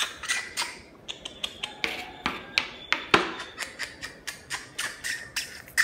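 An irregular run of sharp clicks and taps, several a second, with one louder knock about three seconds in.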